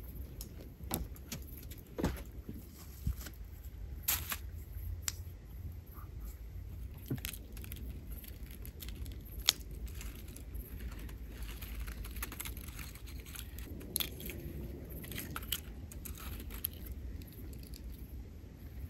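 Aluminium foil crinkling and rustling, with a knife clicking and scraping, as foil-baked potatoes are opened and cut. Scattered sharp clicks throughout.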